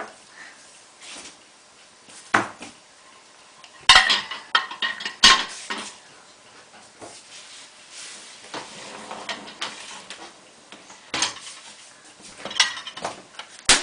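Dishes and cutlery clinking and clattering as they are loaded into a dishwasher rack, in several separate bursts, the loudest about four to five seconds in.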